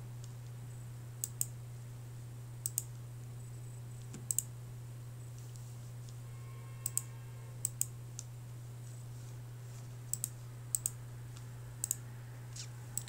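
Computer mouse clicks in quick pairs, press and release, coming every second or two, over a steady low electrical hum.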